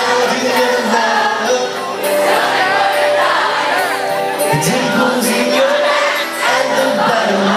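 Live pop-rock band playing, with drums, electric and acoustic guitars, bass and keyboard under a male lead singer singing into a microphone, heard from the audience with crowd noise mixed in.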